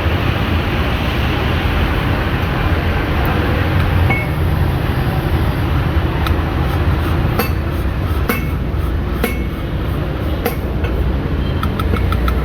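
Steady low rumble and hiss of background machinery or traffic. From about six seconds in come light metallic clinks and taps, like hand tools striking metal parts.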